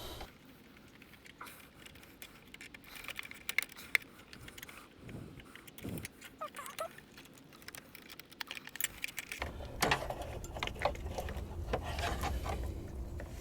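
Metal hand tool working the battery hold-down nut: irregular light metallic clicks and clinks, getting busier over the last few seconds.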